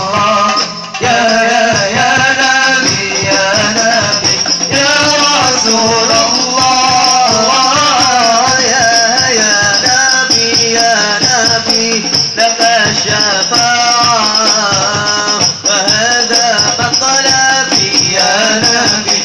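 Hadrah (al-Banjari) devotional music: frame drums beating a steady, dense rhythm under a male voice singing a melismatic Arabic sholawat melody.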